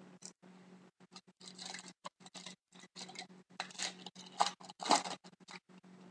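Hockey trading cards and pack wrappers being handled: irregular rustles, scrapes and flicks of card stock and foil as cards are slid and flipped through.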